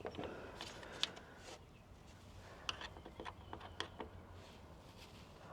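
Small flathead screwdriver prying and scraping at plastic lock clips on a tail light housing, making faint, scattered clicks and scrapes.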